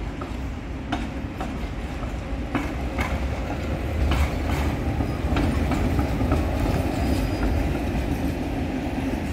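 Articulated tram rolling past on its rails: a steady low rumble that grows louder about halfway through as it comes close, with scattered sharp clicks of the wheels over rail joints.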